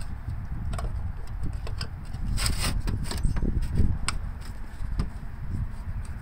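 Screwdriver backing out the screws that hold a lawn mower's carburetor to the top of its fuel tank: scattered small metal clicks and a brief scrape about two and a half seconds in, over a steady low rumble of wind on the microphone.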